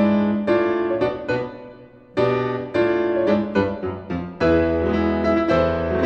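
Piano music: struck notes and chords ringing and decaying, dying away about two seconds in before a new chord is struck and the playing goes on.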